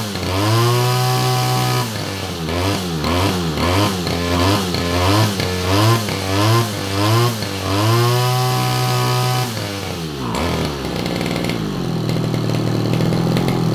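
Stihl backpack brush cutter engine revved with the throttle: held high, then a run of quick blips up and down, held high again, then dropping to a steady idle about ten seconds in. The engine is being tested after its carburettor was set up for more power.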